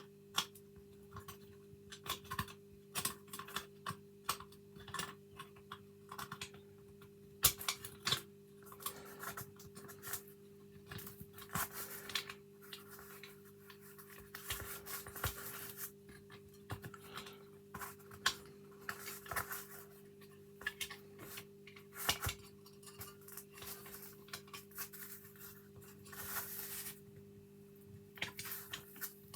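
Small metal parts of an old gate lock clicking, tapping and scraping as they are handled and fitted back into the lock case, in scattered irregular bursts. A steady low hum runs underneath.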